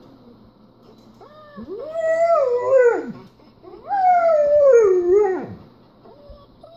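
German Shepherd dog howling twice, two long howls of about a second and a half each that slide down in pitch as they end.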